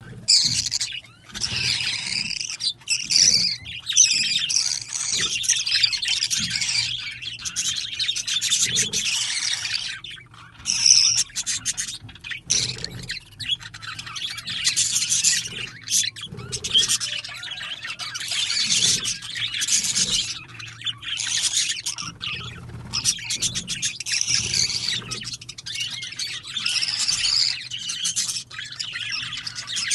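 Baby parrot crying: harsh, high-pitched calls in long, almost unbroken bouts with short pauses between them. These are the typical food-begging cries of a parrot chick.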